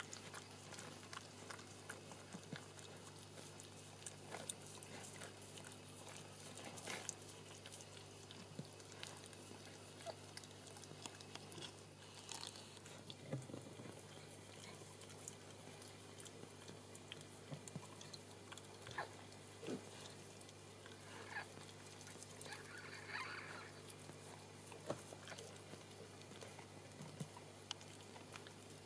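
Shetland sheepdog mother licking her newborn puppy clean: faint, wet licking and smacking clicks over a steady low hum.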